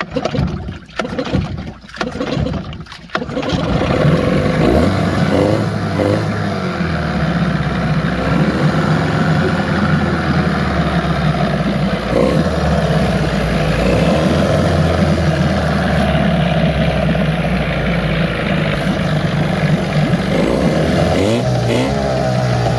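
15 hp Evinrude two-cylinder two-stroke outboard, running in a water test tank: it sputters unevenly for about three seconds, then catches and runs steadily at part throttle, its pitch wavering slightly. The motor's fault is that it won't idle, which is typical of a carburetor problem in older two-strokes.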